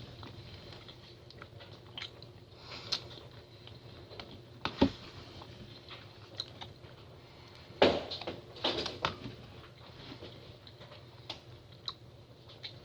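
Close-up eating sounds of someone chewing soft food, with scattered small clicks and smacks. There is a louder burst about five seconds in and a cluster of louder mouth sounds around eight to nine seconds, over a low steady hum.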